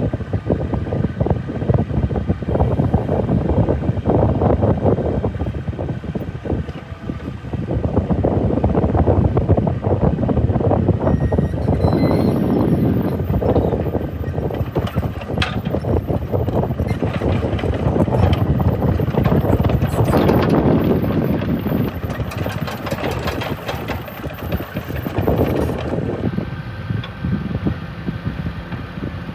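Hitachi mini-excavator's diesel engine running under hydraulic load while the boom, arm and bucket are worked and the machine turns, its note rising and falling in swells. A single clank comes about halfway through.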